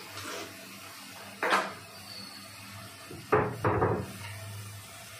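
Metal spatula scraping and knocking against a metal kadai while stirring a thick masala: a short stroke about a second and a half in, and a longer one at about three and a half seconds, over a steady low hum.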